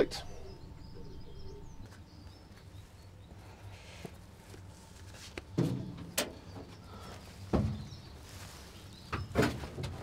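A few scattered metal knocks and clunks as a loose, unbolted cover plate is worked free over the gearbox.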